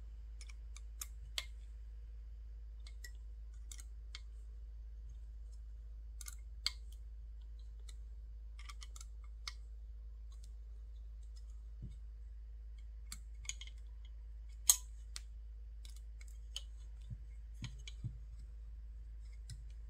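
Light, scattered clicks and taps of small metal screws, standoffs and carbon-fibre frame parts being handled and fitted by hand during an FPV drone frame build, with one sharper click about three-quarters of the way through. A steady low hum runs underneath.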